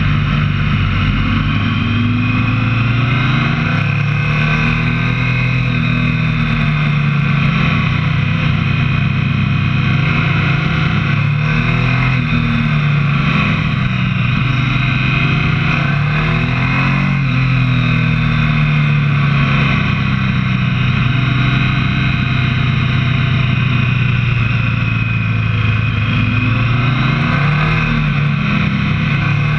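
Motorcycle engine running under way, its pitch rising and falling as the revs change through the bends.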